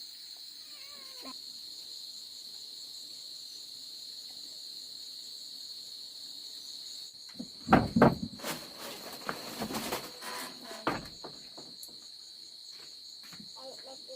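Crickets chirring in a steady, high, continuous trill. Around the middle a short run of loud knocks and clattering breaks in for a few seconds.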